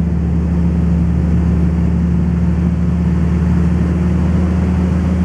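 Gravel truck's engine running steadily at low speed as it backs up, a constant low drone with no change in pitch.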